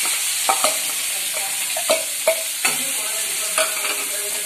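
Chopped onion sizzling steadily as it hits hot oil and butter in an aluminium kadhai and is stirred with a steel spatula. Several sharp metal clinks of the utensils against the pan come at irregular moments.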